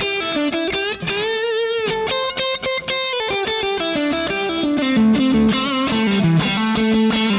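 Electric guitar through a Line 6 Helix preset modelled on an EF86-preamp amp, pushed by a boost into a saturated rock tone, playing single-note lead lines with a bent, wavering note about a second in.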